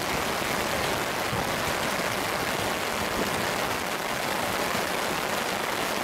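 Strong wind rushing through reeds and over the microphone: a loud, steady, dense rushing hiss.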